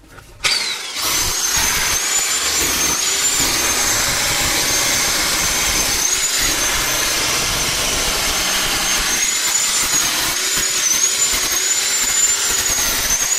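Electric chipping hammer (Stemmmaschine) running steadily, chiselling out the concrete around an old basement window frame. It starts about half a second in, with a high motor whine that wavers.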